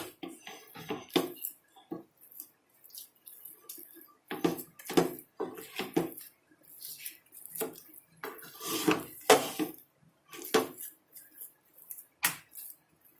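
A spoon scraping and knocking against a cooking pot in irregular strokes as a thick semolina dough, cooked in water, is stirred and pressed to work out lumps.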